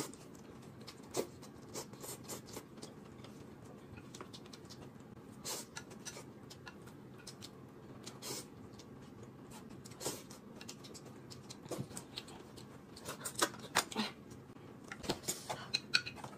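Quiet eating sounds: noodles being slurped and chewed, with scattered short clicks of chopsticks against the plate that come more often near the end.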